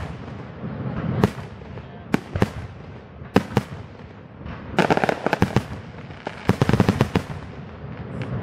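Fireworks display: aerial shells bursting with sharp bangs, one at a time every second or so at first, then two quick runs of rapid bangs and crackles about five and six and a half seconds in.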